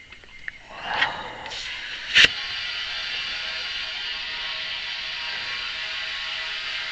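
A sharp click about two seconds in, then a steady hiss of compressed air flowing into a heavy-equipment tire as it is aired up after its bead has been seated.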